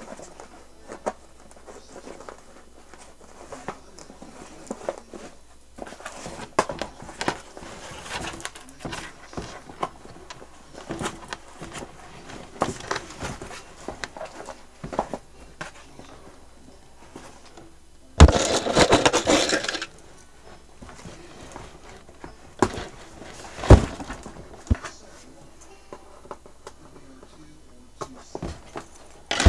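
Cardboard and plastic toy packaging being handled while a doll is unboxed: scattered rustles, crinkles and clicks, with one loud noisy stretch lasting about a second and a half around two-thirds of the way through, and a sharp knock a few seconds after it.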